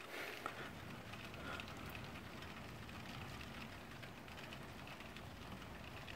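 Rain falling steadily, with scattered small ticks of drops.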